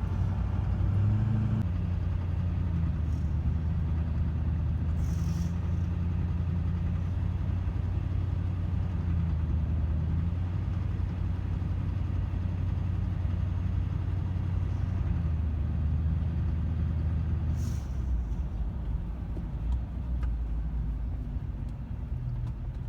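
A 2005 Chevy Silverado 2500's 6.6-litre Duramax V8 diesel idling steadily, the engine being checked for an intermittent knocking noise. Two brief hisses come about a quarter of the way in and again near three quarters, after which the engine's low note turns lower and rougher.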